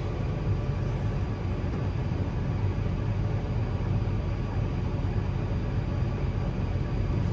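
Tractor engine running steadily under load while it drives the grain cart's unloading auger, corn pouring out of the spout into a semi trailer.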